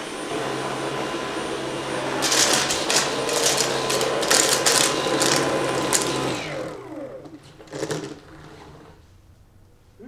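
Dyson V11 cordless stick vacuum with its High Torque cleaner head running on the medium setting over a hardwood floor, with a rapid rattle of chunky cat litter pieces being sucked up and clattering through it. About six seconds in the motor is switched off and winds down with a falling whine, followed by a single knock.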